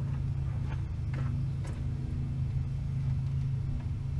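A steady low mechanical hum, with a few faint light taps in the first two seconds.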